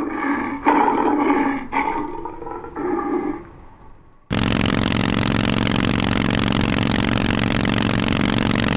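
A roar-like sound in four pulses, fading out, then a sudden cut about four seconds in to a Harley-Davidson Forty-Eight's air-cooled V-twin idling steadily through loud Vance & Hines exhausts.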